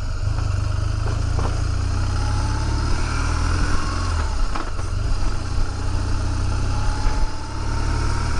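A 2005 BMW R1200GS's boxer twin running steadily while riding, heard with road and wind noise.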